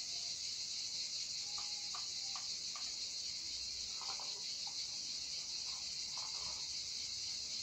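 Steady high insect buzzing, with a few faint light ticks from wire being handled at the table.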